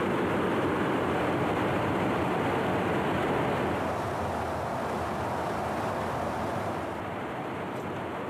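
Steady rushing noise of a tanker aircraft in flight during aerial refueling, heard from inside the boom operator's pod. It drops a little about four seconds in and again near the end.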